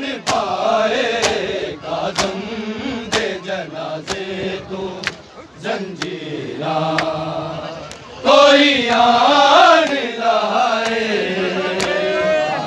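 Male mourners chanting a noha, with sharp beats about once a second from matam, hands striking bare chests in time with the recitation.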